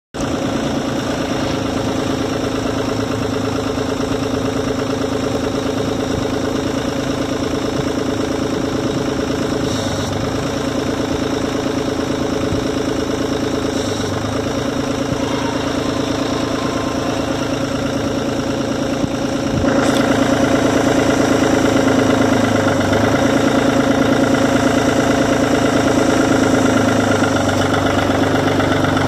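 2002 New Holland TN55 tractor's diesel engine running at idle, getting louder about two-thirds of the way through.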